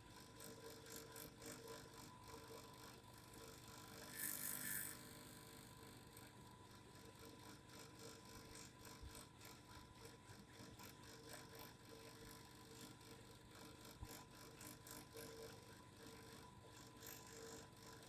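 Faint steady vibration hum with light, irregular ticking rattles. A brief hiss comes about four seconds in.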